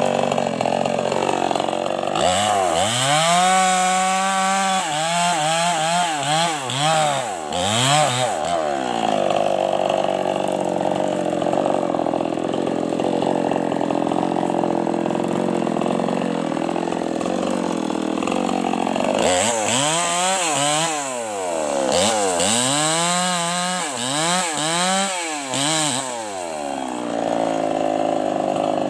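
Mini two-stroke chainsaw cutting through a felled tree trunk. From about two seconds in, and again after about nineteen seconds, the engine revs rise and fall roughly once a second. Between those spells it runs more steadily as the chain bites into the wood.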